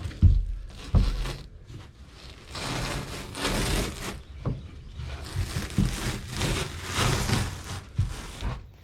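Two sharp knocks near the start, then long stretches of scraping and tearing as the boat's rotten carpeted floor is pried and pulled up.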